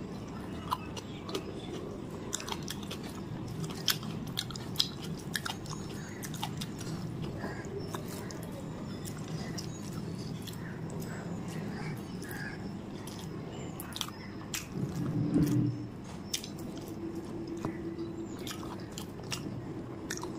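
Close-miked chewing of rice and spicy chicken curry, with frequent short clicks of the mouth throughout. A louder, low sound swells briefly about fifteen seconds in.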